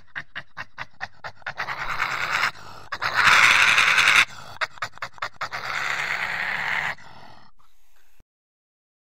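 Asian badger huffing and panting in rapid breathy puffs, about five a second, broken by a few longer, louder hissing breaths. It cuts off about a second before the end.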